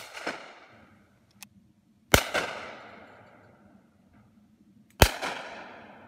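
Three shotgun shots fired at high clay targets, about two to three seconds apart, each followed by a long echoing tail that dies away.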